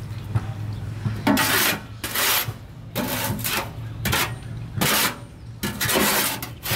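A long-handled shovel scraping and scooping in a wheelbarrow tray: about six rasping strokes, starting about a second in.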